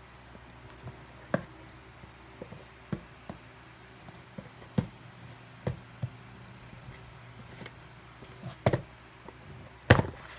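Small cardboard box and paper insert handled on a wooden tabletop: a scattered series of light taps and knocks, the loudest a double knock near the end.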